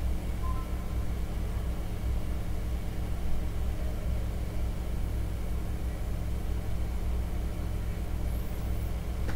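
Steady low hum of background noise, with no speech.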